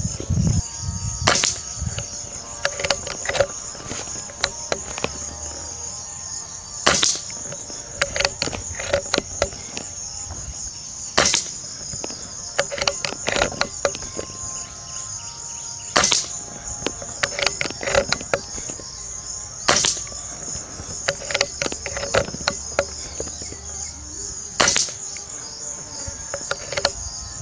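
Diana Stormrider Gen3 PCP air rifle firing six shots, a sharp crack every four to five seconds, with quieter clicks between shots. Steady high chirring of insects underneath.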